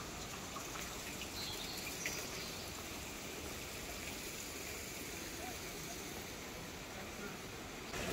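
Water trickling steadily in a shallow garden stream and pond, an even running-water hiss.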